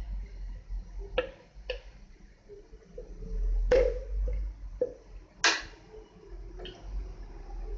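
A metal spoon knocking against the side of a black karahi while stirring small gram-flour fritters frying in oil: about six sharp clinks with a short ring, irregularly spaced, the two in the middle loudest.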